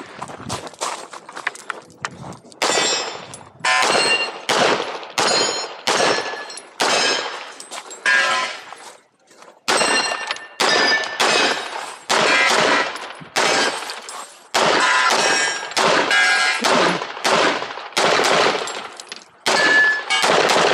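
Handgun shots fired in a fast, steady string, roughly one every two-thirds of a second, with a brief pause about nine seconds in. Some shots are followed by a short metallic ring from hits on steel targets.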